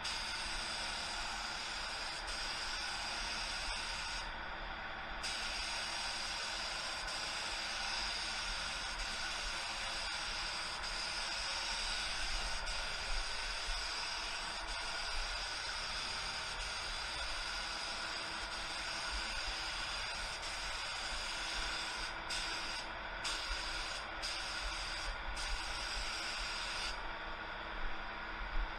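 Gravity-feed paint spray gun hissing steadily as it atomises paint. Its hiss briefly drops out about four seconds in, and again several times in quick succession near the end, as the trigger is let off between passes.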